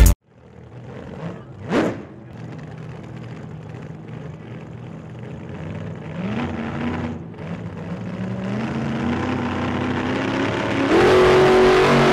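A car speeds past about two seconds in, heard as a quick rising-and-falling whoosh. Then a car engine accelerates, its pitch climbing in steps as it goes through the gears and getting louder toward the end.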